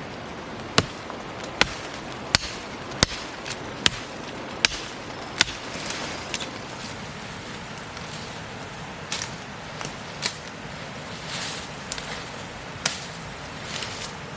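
Sharp strikes at a steady pace, about one every three quarters of a second, seven in a row, then a few softer scattered knocks.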